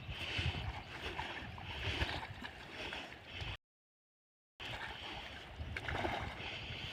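Wind rumbling on the microphone over water lapping around a small boat. The sound cuts out completely for about a second midway.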